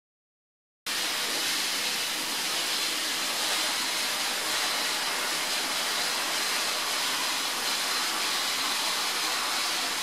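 Abrasive blast nozzle spraying medium-grit glass media onto a car body shell: a steady, loud hiss that starts abruptly about a second in and cuts off suddenly at the end.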